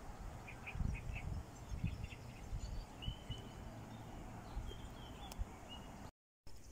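Outdoor ambience of wind buffeting the microphone in irregular low gusts, with faint small-bird chirps and a brief whistled call about three seconds in. The sound cuts out for a moment near the end.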